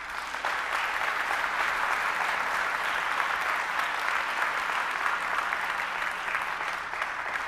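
Audience applauding, a steady clapping that begins right away and tapers off near the end.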